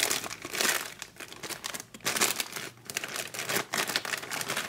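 Clear plastic bag crinkling in irregular bursts as hands pull it off a chrome floorboard cover.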